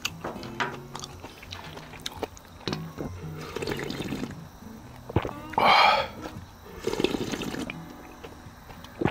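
Ramen noodles being slurped and eaten in broth: wet slurping with scattered light clicks, and one loud slurp a little past halfway.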